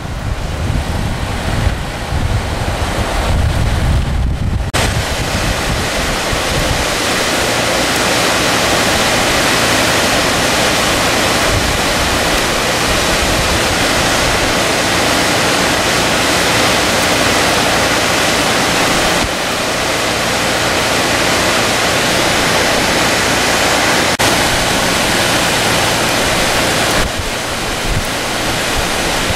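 Muddy floodwater rushing and churning through a canal. For the first few seconds wind buffets the microphone, then the steady rush of water fills the sound.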